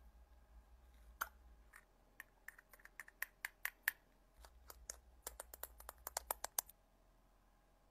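An irregular run of sharp, light clicks, about two dozen, starting about a second in, coming fastest in the second half and stopping shortly before the end.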